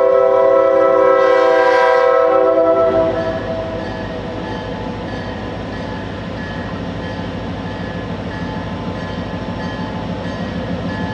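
Diesel freight locomotive horn sounding a long chord for a grade crossing, cutting off about three seconds in. After that the locomotive's engine and the train rumble steadily closer, with a crossing bell dinging faintly.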